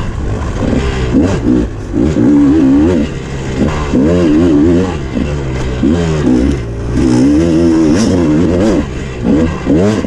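Dirt bike engine revving up and down over and over as the rider works the throttle through the trail, its pitch rising and falling every second or so, with wind noise throughout.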